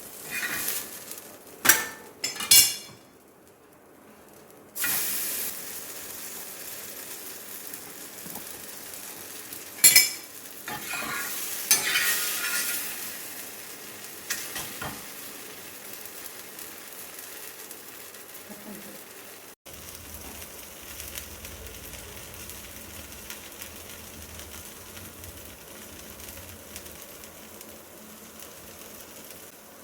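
Paneer paratha frying in ghee on a flat iron griddle (dosa tawa): a steady sizzle and hiss. There are sharp utensil knocks twice in the first three seconds and once about ten seconds in. The sizzling is louder around twelve seconds, and from about twenty seconds in it turns steadier and softer.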